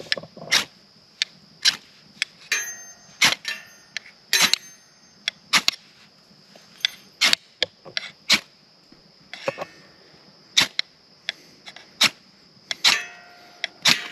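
Ferrocerium rod scraped again and again with a steel striker: about twenty sharp, irregularly spaced rasps, some with a brief metallic ring, throwing sparks onto a petroleum-jelly cotton ball until it catches.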